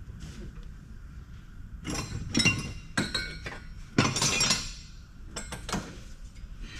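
Hard scrap pieces clinking and clattering against each other as they are handled. The clatter comes in several bursts, the loudest about four seconds in.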